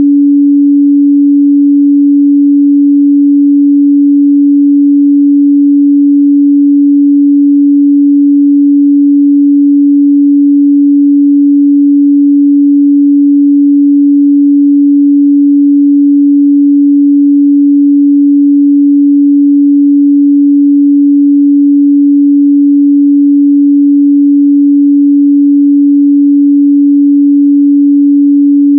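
A pure 285 Hz sine-wave test tone, held steady and loud at one unchanging pitch.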